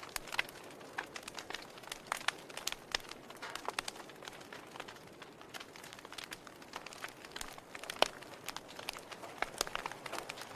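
Wood fire in a fireplace crackling: irregular pops and snaps over a soft steady hiss, with the loudest snap about eight seconds in.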